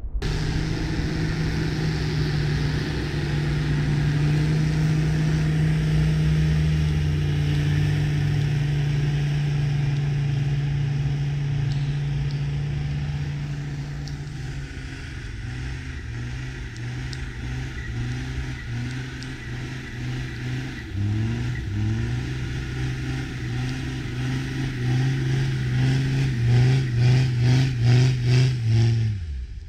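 Land Rover Discovery TD5's five-cylinder turbodiesel engine driving through deep snow: a steady note for the first half, then revving up and down, getting louder near the end with a rapid pulsing beat.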